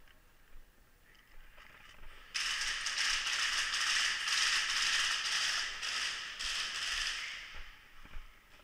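Airsoft gun firing a long full-auto burst: a fast, rattling string of shots that starts suddenly about two seconds in and runs for about five seconds before dying away.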